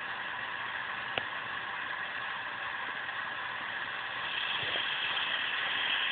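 Small electric drive motor of a homemade screwdriver antenna whirring steadily, growing louder about four seconds in, with one faint click about a second in.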